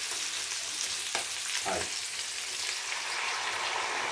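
Pork pieces and whole garlic heads frying in olive oil in a pan: a steady sizzle, with two small knocks a second or two in. Near the end a cup of water is poured into the hot pan and the sizzling thickens.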